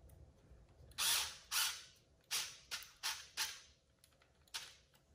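Hex driver working a small screw into the plastic light-kit mount of an RC truck: six short rasping bursts over about four seconds, the last one set a little apart.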